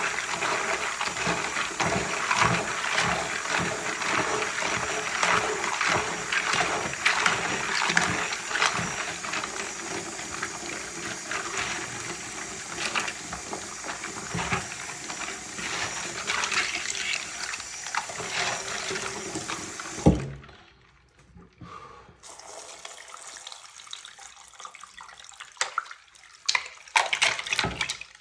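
Water sloshing in a pot of hot water, with plastic keycaps knocking and clattering in it. The sound stops suddenly with a sharp knock about 20 seconds in, leaving a quieter stretch with a few light clicks near the end.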